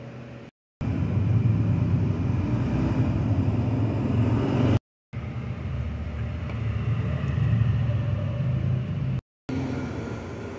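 Hyundai Tucson engine running steadily with a low rumble, heard in three short pieces split by brief silent cuts.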